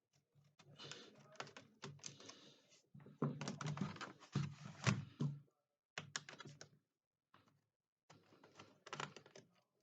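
Clicking and rattling of a screwdriver and small screws against the plastic base of a Toshiba Tecra S11 laptop as the back cover screws are taken out. The sounds come in short, irregular spells with brief pauses and are loudest a few seconds in.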